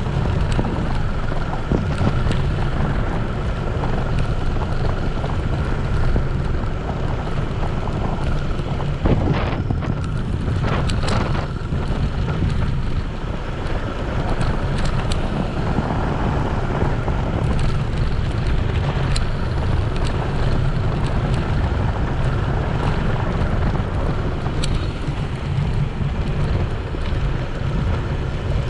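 Wind buffeting an action camera's microphone on a moving bicycle: a loud, steady low rumble with a hiss of rolling noise over it, and a few short knocks about nine to eleven seconds in.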